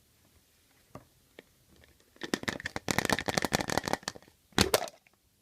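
Foil wrapper of a chocolate surprise egg crinkling and tearing as it is peeled off, followed by a short loud crack near the end.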